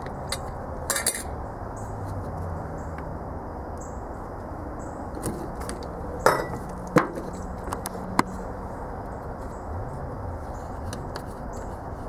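A glass mason jar and its metal screw lid handled on a wooden table: a few sharp clinks and knocks, the loudest two about six and seven seconds in, over steady low background noise.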